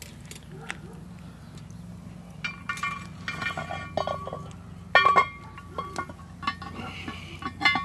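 Metal ladle and lid clinking and clanking on a cast-iron Dutch oven: a series of clinks with short metallic ringing, the loudest clanks about five seconds in and again near the end.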